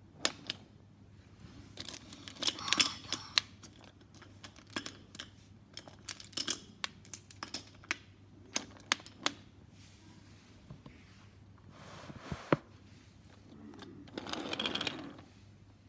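Wooden toy trains handled on wooden track: a scatter of sharp clicks and knocks as engines and cars are set down and knocked together, with brief rubbing and rustling about three seconds in and again near the end.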